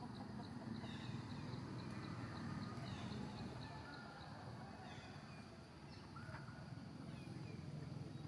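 Quiet outdoor ambience of a forest clearing: a rapid series of high ticks, about four a second, that stops about three seconds in, scattered short falling bird chirps, and a low steady background rumble.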